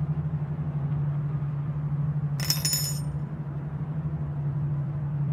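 Film soundtrack with a steady low hum under the scene. About two and a half seconds in comes a brief, bright, high-pitched chime lasting about half a second.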